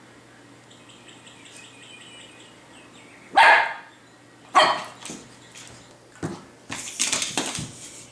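Brittany spaniel puppy barking at a toy: two sharp barks about a second apart, then a run of rougher, noisier sounds near the end.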